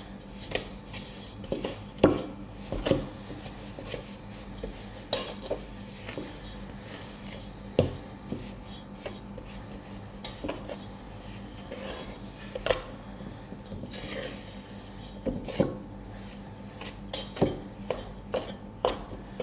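Wooden spoon scraping round a stainless steel bowl, creaming butter and sugar, with irregular sharp knocks where the spoon strikes the bowl's side.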